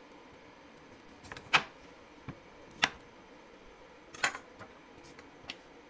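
Kitchen knife cutting through a raw carrot on a plastic cutting board: three sharp knocks as the blade goes through and hits the board, each about a second and a half apart, with a few fainter ticks between.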